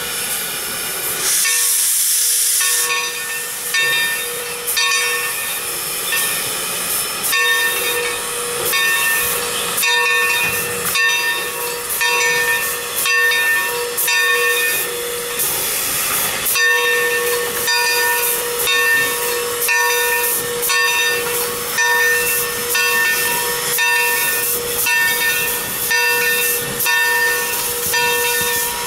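Bell of a Baldwin 2-8-2 Mikado steam locomotive ringing steadily, about one stroke a second, over the hiss of escaping steam as the engine moves slowly. A louder burst of steam hiss comes about two seconds in.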